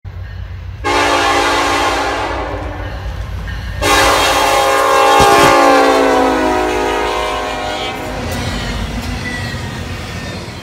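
A freight diesel locomotive sounds its horn twice as it passes at speed: a short blast, then a longer, louder one that drops in pitch as the locomotive goes by. The low rumble of the passing double-stack container train runs underneath.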